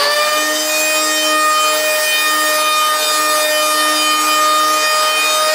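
Accurate electric surfboard power planer running at full speed: a steady, loud high-pitched whine over a hiss.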